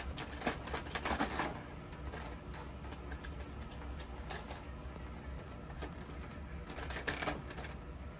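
Small hard-plastic clicks and rattles from a clear plastic compartment organizer being opened and tiny plastic miniature pieces being picked out of it. The clicks come thickly in the first second and a half, sparsely in the middle, and bunch up again about seven seconds in.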